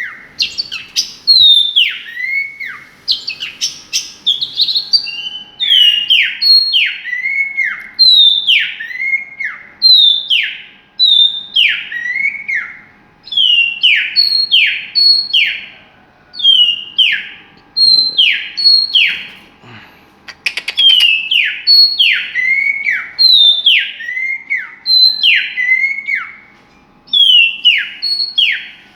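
A songbird singing loud, repeated whistled notes that each slide steeply down in pitch, delivered in quick runs of two to four with short pauses between.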